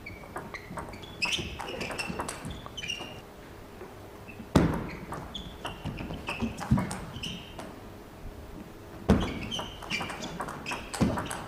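Table tennis rallies: the celluloid-type plastic ball clicking back and forth off rackets and the table, with a few much louder sharp strikes about four and a half, six and a half and nine seconds in.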